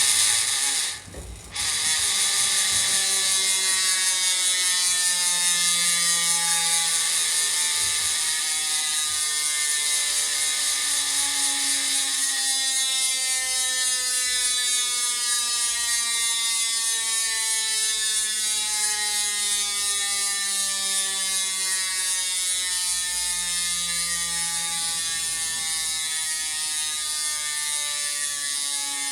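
Chris King ISO rear hub's ring-drive freewheel buzzing as the wheel coasts, a dense ratcheting buzz. It breaks off briefly about a second in, then runs on, its pitch falling slowly as the wheel loses speed.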